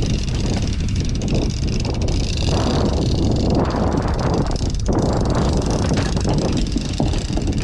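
Steady low rumble of wind and sea around an open fishing boat, buffeting the camera microphone.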